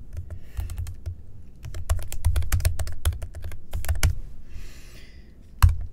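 Typing on a computer keyboard: a quick run of keystrokes, then one louder keystroke near the end.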